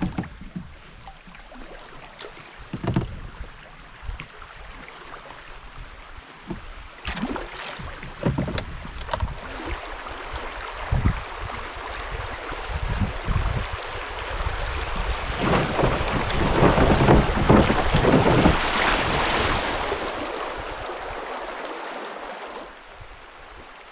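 River water rushing around a canoe as it runs a shallow riffle, swelling to its loudest a bit past the middle and easing off near the end, with short splashes and thumps from the double-bladed paddle strokes.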